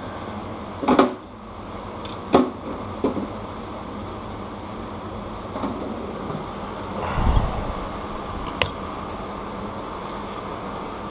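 Scattered clicks and knocks of bicycle cassette parts being handled and cleaned, with a dull thump about seven seconds in, over a steady background hiss.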